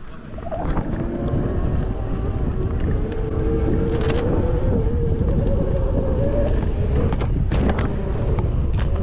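Mountain bike riding fast down a dirt singletrack, heard from a camera on the bike or rider: wind buffets the microphone under a steady whirring tone from the bike, with a few sharp clatters as it hits bumps.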